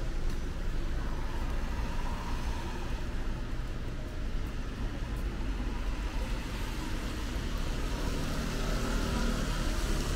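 Road traffic on a rain-wet street: a steady low rumble, with tyre hiss on the wet road growing louder over the last few seconds.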